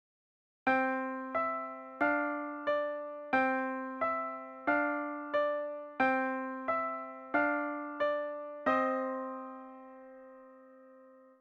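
Piano playing a short phrase of evenly spaced single notes, about three every two seconds, ending on a held note that rings and fades for a few seconds before cutting off.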